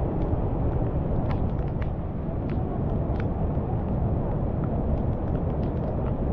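Rain-swollen mountain torrent in flood, muddy whitewater rushing over boulders: a loud, steady rush, with scattered small ticks through it.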